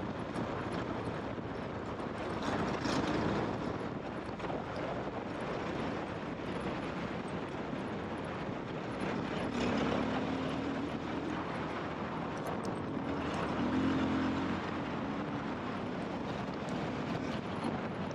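KTM trail motorcycle being ridden off road: its engine running under a steady wash of wind and rough-ground noise, the engine note swelling a few times, most clearly about ten and fourteen seconds in.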